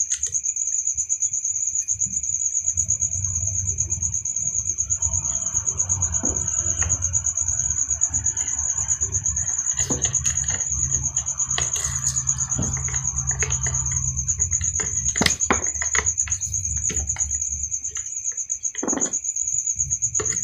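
Scattered clicks and small metallic taps of hand work on a power drill's carbon-brush holders while a burnt brush spring is swapped for a new one. Under them runs a steady high-pitched insect-like trill and a low hum.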